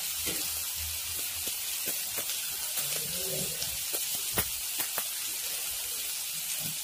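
Wheat-flour pancake sizzling steadily in oil on a hot non-stick pan, with a few light clicks about four to five seconds in as a silicone brush spreads oil over it.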